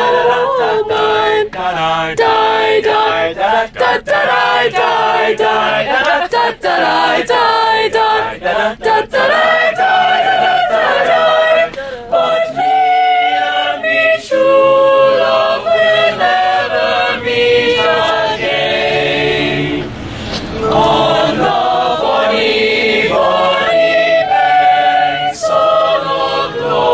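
A choir singing a cappella in several-part harmony.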